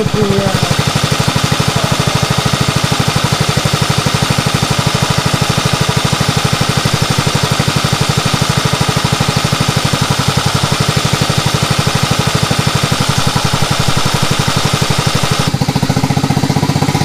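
Small Yamaha F6 four-stroke single-cylinder outboard motor running steadily with an even firing beat, running well. Its tone changes slightly near the end.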